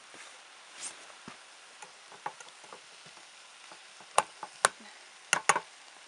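Rice and vegetables frying in a pan on a portable butane camping stove, with light scraping of a spoon, then several sharp knocks of the spoon against the pan about four seconds in as the clumped rice is stirred and broken up.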